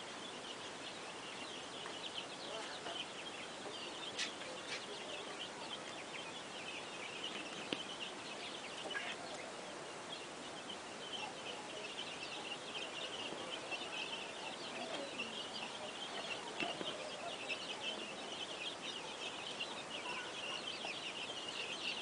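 A crowded flock of chickens calling together, a dense chorus of short high calls that grows busier in the second half.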